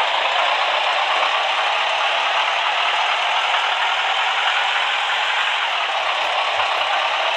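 Toy trucks in a towed convoy rolling over gravel: a steady rattling, grinding noise.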